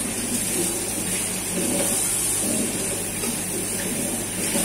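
Kitchen tap running steadily into a stainless steel sink as raw chicken is rinsed under the stream by gloved hands.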